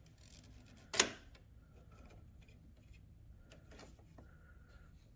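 Handling noises as a trimmed grille mesh screen is fitted around a tow hook: one sharp knock about a second in, then faint light clicks and taps.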